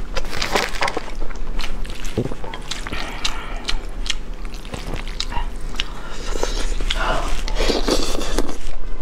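Chopsticks clicking and scraping against a plate as they stir sticky, saucy instant noodles, then a long slurp of a mouthful of noodles near the end, with eating and chewing sounds.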